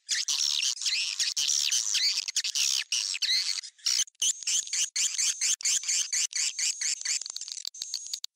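Recorded swiftlet calls played as a lure sound to draw swiftlets into a bird house: rapid, high-pitched chirping twitters, dense and overlapping, broken by short gaps. Near the end the calls grow thinner and higher.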